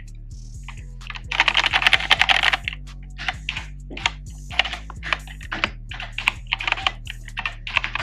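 Typing on an EDJO MK61 compact mechanical Bluetooth keyboard: a quick flurry of keystrokes about a second and a half in, then separate, spaced-out key presses.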